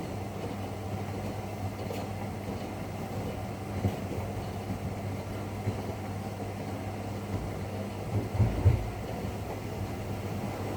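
Rex-Electrolux RJ 7160 TA washing machine running mid-cycle: a steady low hum and rumble, with a few short thumps about four seconds in and again near the end.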